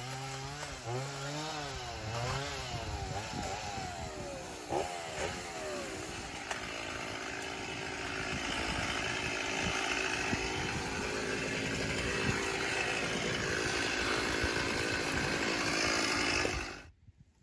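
Small gas engine revving up and down several times, then running steadily and growing louder until it cuts off abruptly near the end.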